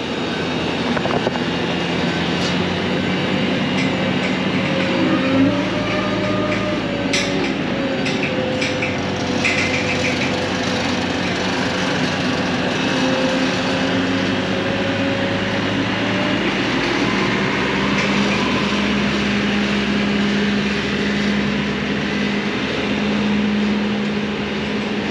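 Skid-steer loader's engine running steadily as it carries a steel gate away, its pitch dipping and rising slightly. There are a few sharp metal clanks about seven to ten seconds in.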